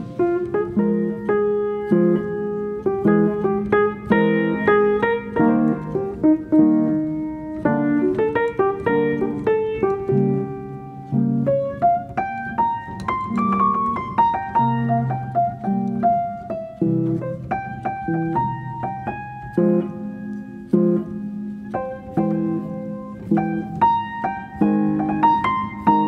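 Background piano music: a solo piano playing a gentle run of notes.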